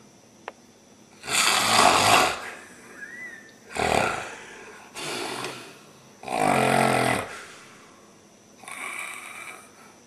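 A person snoring loudly, "like a banshee": five harsh snores in a row, one every second or two. The first and fourth are the longest and loudest, and the last is fainter.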